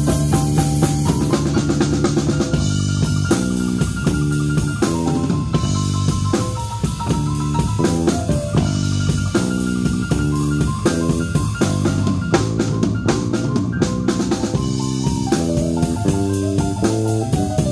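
Instrumental stretch of a live blues band: a stage keyboard plays a melodic run over a full drum kit, with no vocals. A busy drum fill comes a little past the middle.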